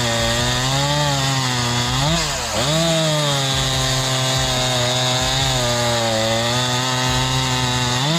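Gasoline chainsaw running at high revs through wood, its pitch sagging briefly about two seconds in as the chain takes the load, then picking back up and holding steady.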